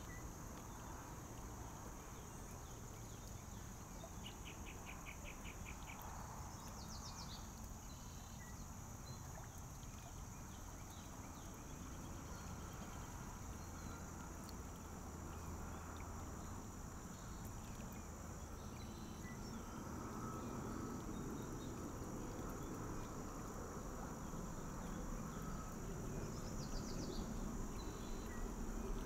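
Shallow, clear stream rippling steadily over a gravel bed, growing a little louder in the last third, with songbirds trilling a few times, notably a rapid trill and a falling call a few seconds in and another falling trill near the end.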